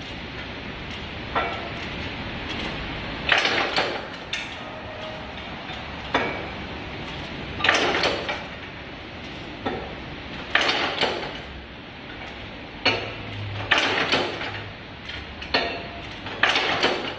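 Brake lining and clutch facing automatic riveting machine setting rivets through a brake lining on its shoe: about ten sharp strokes, a second or two apart at irregular intervals and several in quick pairs, as the work is turned between rivets. A steady motor hum runs underneath.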